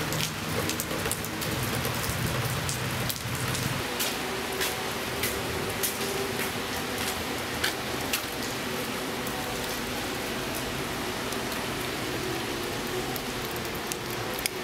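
Steady rain falling on pavement: an even hiss with scattered drips.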